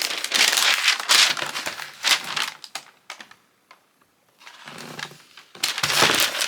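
Paper packing inside a sneaker box crinkling and rustling as it is handled, in two spells with a short quiet pause between.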